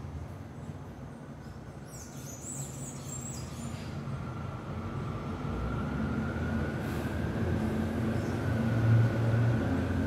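Low mechanical rumble with a faint steady whine, growing gradually louder, and a brief burst of high bird chirps about two seconds in.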